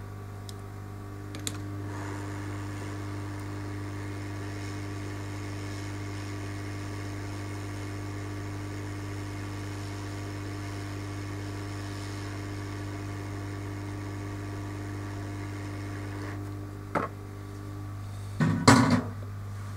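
A small fan or blower motor running steadily over a low mains hum. It starts with a click about a second and a half in and stops with a click near the end, followed by a short, loud clatter.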